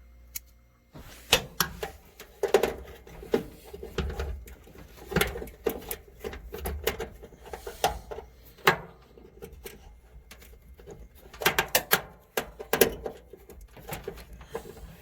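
Irregular clicks, scrapes and light clatter of a hand screwdriver and small screws being worked into a part on a Kenmore HE3 gas dryer, coming in clusters with short pauses between.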